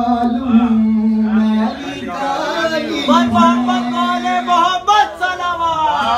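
A man's voice chanting a manqabat, the unaccompanied Urdu devotional poem in praise of Imam Hassan, drawing out a long held note twice. Shorter vocal phrases follow near the end.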